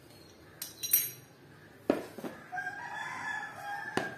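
A few sharp clinks and knocks as metal piping nozzles are set down on a table and a plastic bowl of whipped cream is picked up, with a spatula scraping in it. Over the second half, a long animal call in the background is held for about a second and a half.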